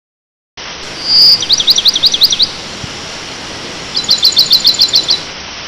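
A small bird singing high, fast notes: a short whistle and a quick run of swooping notes, then after a pause a rapid burst of about eight sharp notes, over a steady rush of water.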